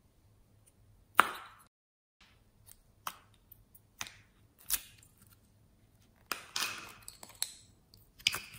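Purple plastic diamond-shaped slime container being handled and pulled open over a dish of slime, making a series of sharp plastic clicks and sticky slime squelches. The loudest click comes about a second in, and a longer squelching patch follows about two-thirds of the way through.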